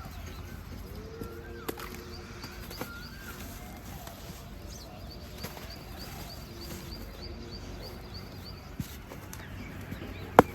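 Lumps of red dirt crumbling and dropping into water, heard as a few scattered sharp clicks with the loudest near the end. Birds chirp in the background.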